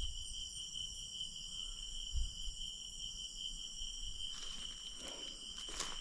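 Night insects, crickets, chirring steadily in several high, even tones, with a faint low rumble underneath and a sharp click near the end.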